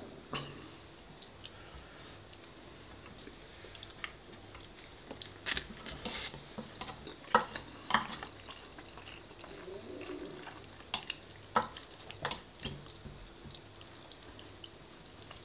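Close-miked eating of spaghetti bolognese: chewing and mouth sounds with small sharp clicks scattered irregularly, a few seconds apart.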